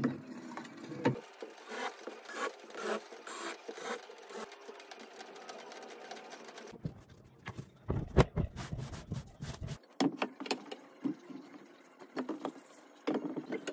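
Plywood sheets being handled on a table saw top: a run of knocks and scrapes as the sled base is set down and worked, with a rumbling stretch in the middle and more scattered knocks near the end.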